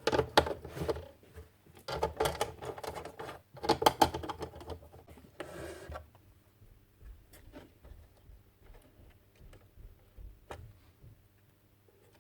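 Small plastic and metal radio parts being handled and fitted together during reassembly: a busy run of clicks, scrapes and rattles for about six seconds, then only occasional light ticks.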